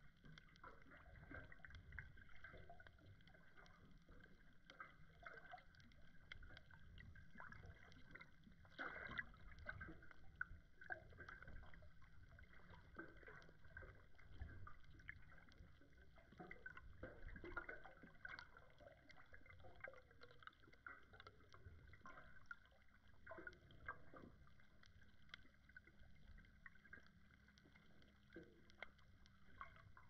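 Faint underwater ambience heard through a submerged GoPro: a muffled low rumble of moving water with many scattered soft clicks and crackles.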